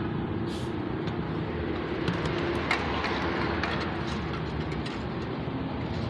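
Steady background noise of road traffic, with a couple of faint clicks.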